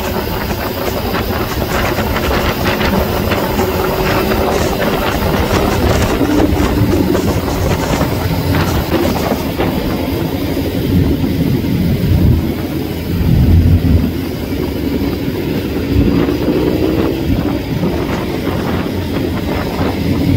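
Engines of a large group of motorcycles riding together, a steady loud rumble with engine pitch rising and falling a few times as throttles open and close, mixed with road and wind noise.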